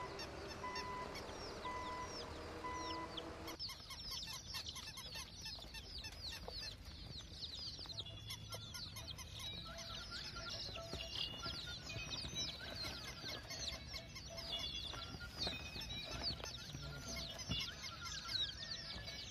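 A flock of chickens calling, a dense chatter of many short, high, overlapping calls. It starts abruptly about three and a half seconds in, after a short stretch of faint steady tones with a tone pulsing about once a second.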